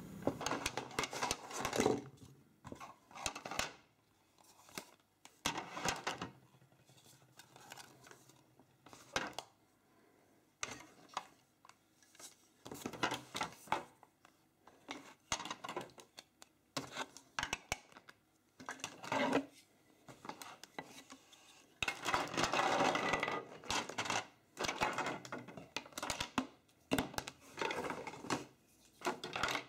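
Hard plastic LEGO DUPLO pieces clacking and clattering against each other and the cardboard box as they are handled and lifted out, in scattered clicks with a longer spell of rummaging about 22 seconds in.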